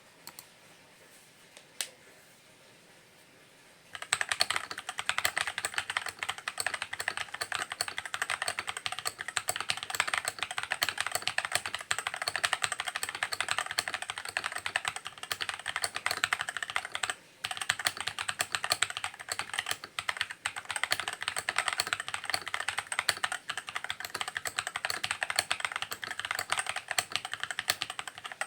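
Typing on a Fantech Maxfit61 mechanical keyboard: one lone click about two seconds in, then rapid continuous keystrokes from about four seconds on, with two brief pauses.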